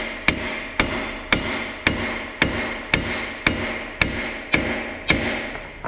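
Steady series of about eleven sledgehammer blows on a steel truck drop spindle, about two a second, each with a short metallic ring. The blows are meant to shock the lower ball joint's tapered stud loose from the spindle.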